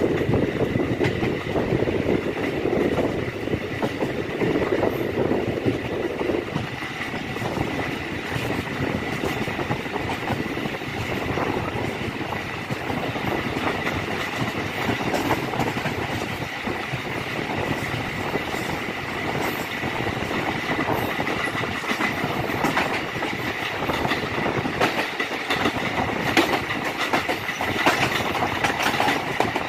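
Passenger train running along the track, heard from aboard: a steady rumble of wheels on rails with scattered clicks over the rail joints and a thin, steady high tone.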